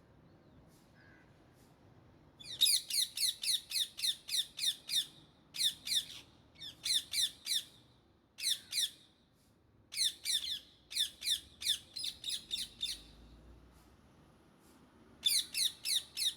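Indian ringneck parakeets calling in runs of sharp, rapid squawks, about six a second, in several bursts with short pauses between them, beginning a couple of seconds in.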